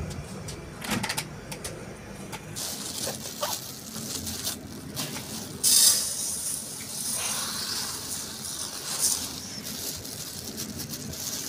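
Dry basmati rice poured from a plastic bag into a steel bowl of water for soaking: a dense hiss and patter of grains with crinkling plastic, loudest about six seconds in. A few sharp clicks of handling come before the pour.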